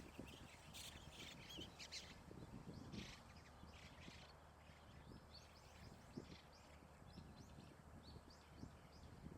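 Faint, short bird calls, a few in the first four seconds and a run of small ones later, over a low steady hum.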